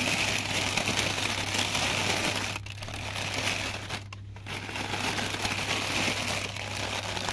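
Clear plastic bags crinkling as wrapped decorations are grabbed and handled: a continuous rustle broken by two short pauses, about a third of the way in and just past halfway.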